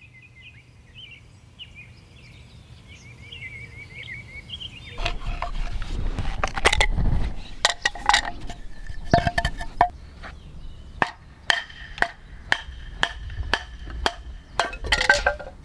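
A series of sharp wooden knocks with a short ring: a wooden baton striking a knife to split a stick for kindling, starting about five seconds in and coming about twice a second towards the end. Faint bird chirps before the knocking starts.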